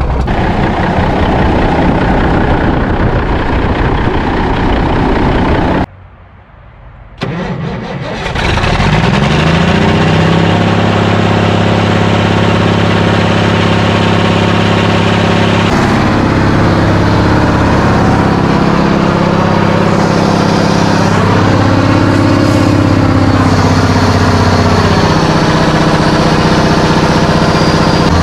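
855 Cummins diesel engine, worn by the dirt it sucked in, running loudly for the first six seconds before the sound drops away briefly. It then picks up again with rising revs and settles into a steady idle, with a couple of small rises in revs later on.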